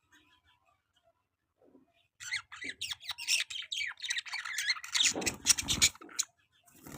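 Budgerigars chattering and squawking in quick, busy bursts, starting about two seconds in after a near-quiet start, with a harsher, lower squawk a little past the middle.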